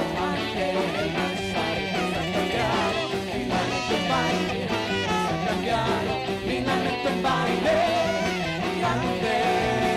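Live band music with electric guitar, drums and keyboard, and a man singing a melody over it.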